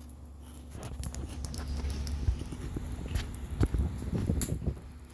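Crunchy microwaved pork rinds being chewed close up: irregular crunches and crackles starting about a second in.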